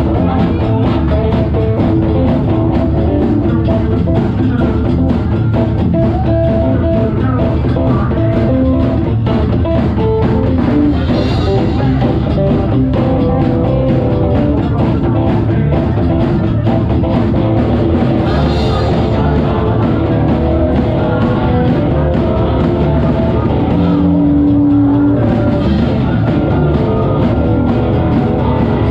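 Live psychobilly band playing loud: hollow-body electric guitar, upright double bass and drum kit together.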